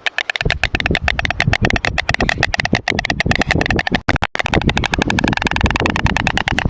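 White storks clattering their bills: a fast, even train of dry clacks, about ten a second, with a brief break about four seconds in and a low rumble underneath.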